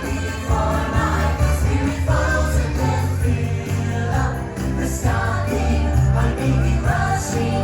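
Christmas parade music from the park's loudspeakers: a choir singing over a steady bass line with jingle bells.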